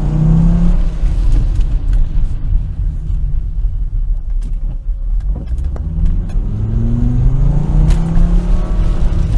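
Volvo non-turbo 2.4-litre straight-five petrol engine accelerating hard, with its air filter cover removed so the intake sound comes through loudly. The revs climb, fall away about a second in, and climb again from about six seconds in.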